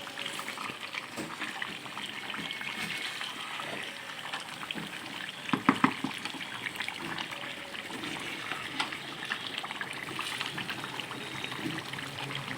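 Food bubbling and crackling in a pot on a gas stove, with a quick run of clinks from a spoon against the pot about six seconds in.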